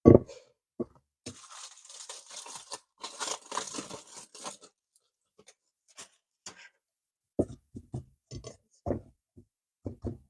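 Food packaging being torn open and handled: a thump, then a rough tearing, crinkling sound for about three seconds, followed by several light knocks and clicks.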